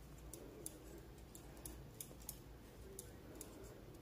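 Faint, irregular clicking of metal double-pointed knitting needles as stitches are purled by hand.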